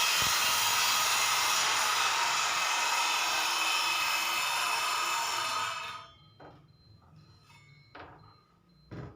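Circular saw cross-cutting a wooden board: a loud, steady cutting noise for about six seconds that then dies away, followed by a few light knocks.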